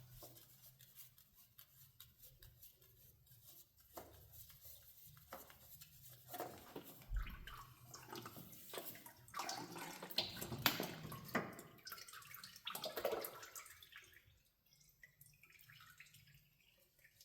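Motor oil dripping and splashing into a drain pan from the oil filter mount, with scattered clicks and handling noises. The sounds are busiest in the middle and quieter near the end.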